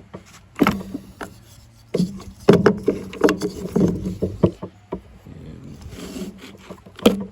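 Plastic ratchet bar clamp being worked and handled: a string of irregular clicks and knocks as the jaw is moved and the handle squeezed, thickest in the middle of the stretch.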